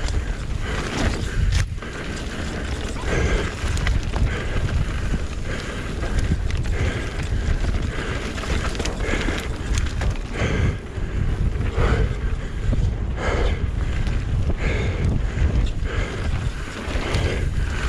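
Wind rushing over an action camera's microphone with the rattle and knocks of a mountain bike descending a rough trail at race speed: tyres on dirt and the bike clattering over roots and rocks.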